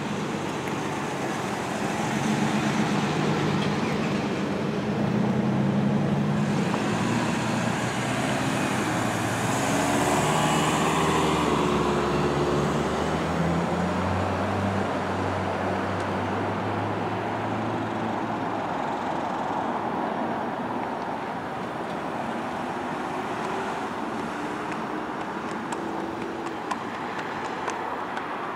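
Road traffic: cars and trucks driving past, their engine and tyre noise swelling and falling away as each goes by, with engine pitch sliding down between about 9 and 14 seconds in. Near the end, faint sharp clicks of a horse's shod hooves walking on asphalt.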